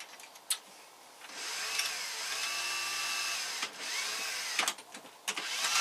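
Small electric power tool run in short bursts, its motor speeding up, holding a steady whine and winding down, then a second brief run, with a few sharp clicks of tool handling.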